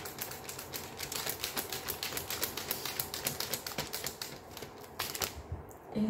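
Rapid, irregular dry clicking, several clicks a second, much like typing, dying away about five seconds in.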